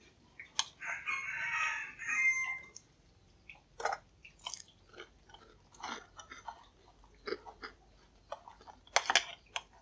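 Wet, sticky clicks and squishes of fingers and chopsticks mixing fried tofu pieces into batter in a bowl, with a sharp double knock near the end. A rooster crows for about two seconds near the start.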